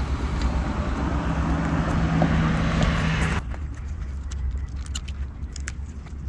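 A steady mechanical rushing noise with a low hum, like a motor running nearby, that stops abruptly about three and a half seconds in; after that, small sharp clicks and rattles of cable connectors and a tool being handled.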